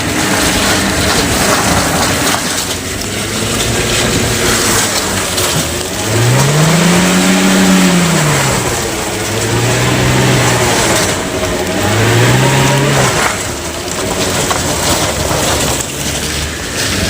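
A vehicle engine revving up and down several times over a steady rumble of road noise, as vehicles struggle to get through a muddy, broken road.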